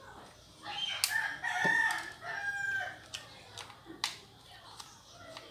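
A drawn-out pitched animal call in the background, lasting about two seconds, with a couple of sharp clicks, one about a second in and one about four seconds in.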